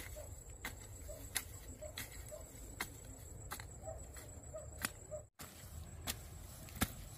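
Steady rhythm of sharp chopping strikes, about three every two seconds, with a brief dropout to silence about five seconds in.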